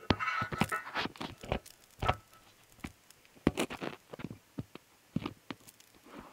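Handling noise: irregular clicks, taps and short scrapes as a phone is moved around inside a steel stove's firebox, close against its lining.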